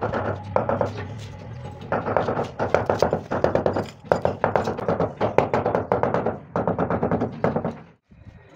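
Small hammer tapping on a marble floor slab in quick runs of light knocks, bedding the slab down into its mortar. It stops suddenly near the end.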